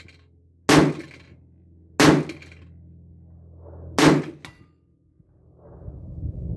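AR-15-style rifle firing three shots, about a second and a half and then two seconds apart, each with a short ringing tail.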